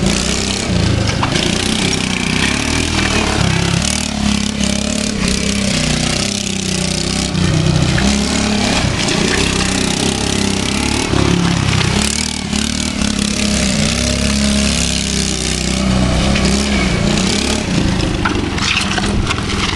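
110cc mini quad engine revving up and down as the quad is driven hard in drifting circles on concrete.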